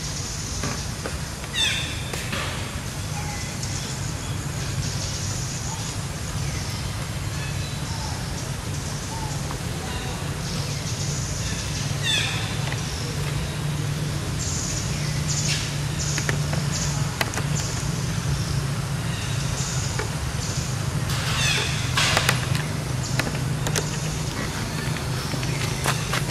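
Outdoor ambience: a steady low hum, with a few short falling chirps and scattered bursts of high hiss, and a cluster of sharp clicks near the end.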